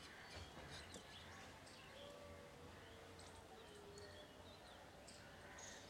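Near silence: faint outdoor background with a few faint bird calls.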